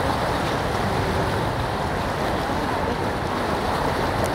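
Steady rushing of the flooded Seine swirling around a stone bridge pier, mixed with wind buffeting the microphone.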